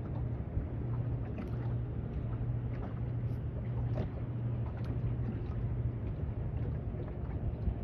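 A boat engine's steady low drone, with water lapping and splashing against a boat's hull now and then.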